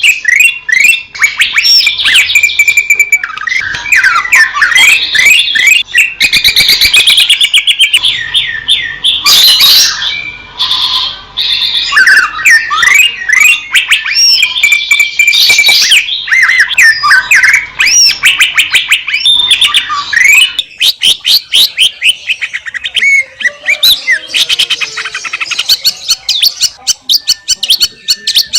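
Cucak ijo (green leafbird) singing a loud, fast, unbroken song of chirps, trills and whistled slurs. About two-thirds of the way through it switches to rapid runs of short repeated notes.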